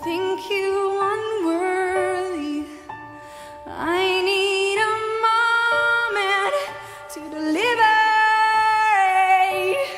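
Music with a woman singing long held notes with vibrato, in three phrases.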